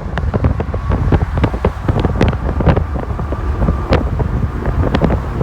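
A car driving along: a steady low engine and road rumble, with wind buffeting the microphone in many short crackles.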